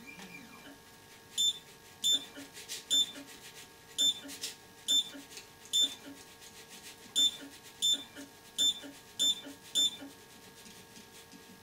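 Anycubic Photon resin printer's touchscreen beeping, about eleven short high beeps at uneven intervals of half a second to a second, each one a button tap to lower the build plate.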